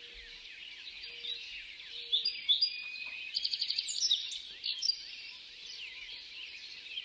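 Many small songbirds chirping and twittering at once, with a quick trill of about eight rapid notes a little over three seconds in.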